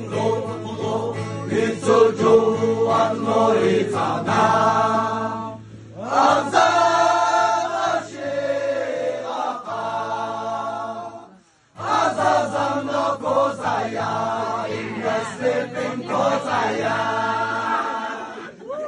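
A group of young men singing together in chorus, a held, chant-like melody with several voices over a steady low tone. It breaks off briefly twice.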